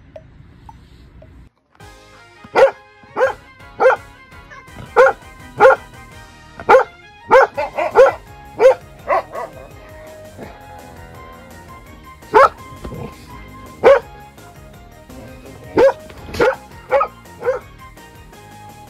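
A dog barking a long string of short, sharp barks, in quick runs with a short lull partway through: the older dog scolding a Great Dane puppy. Soft background music plays underneath.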